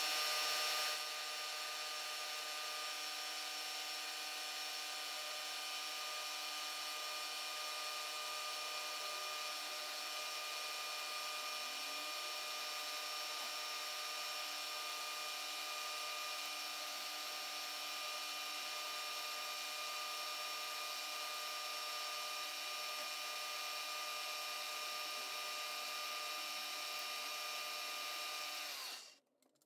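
Milling machine spindle running while an end mill cuts a step along the side of a small soft casting: a steady whine made of several held tones over a hiss. It stops near the end.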